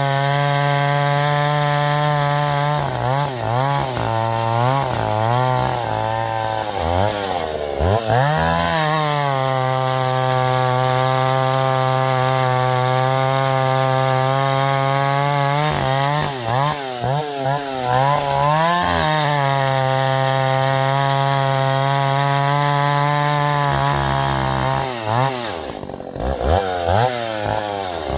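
Vintage Husqvarna L65 two-stroke chainsaw running at high revs while bucking ash logs, its pitch sagging and recovering in three spells as it loads in the cut, and dropping away near the end.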